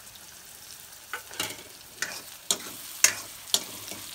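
Chopped onions sizzling in hot oil in a kadhai, with a steel ladle scraping and knocking against the pan about every half second from about a second in as they are stirred.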